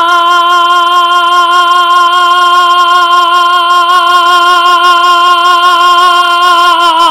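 A male sevdah singer holding one long, high sung note on the vowel "u" with a slight vibrato, unaccompanied.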